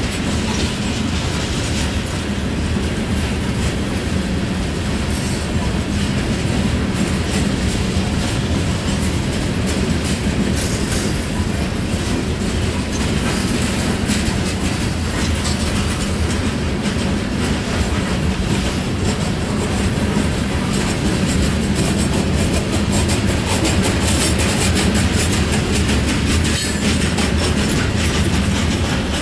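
Covered hopper cars of a freight grain train rolling past at a grade crossing: a steady rumble with the wheels clicking over the rail joints.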